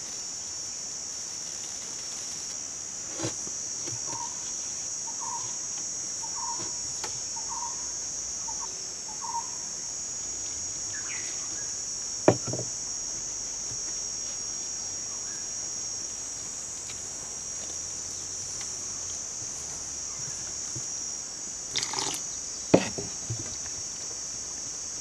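Steady high-pitched insect chorus, like crickets, that runs without a break. A short run of about six soft calls comes early in the middle, and there are a few sharp knocks, the loudest about halfway through and another near the end.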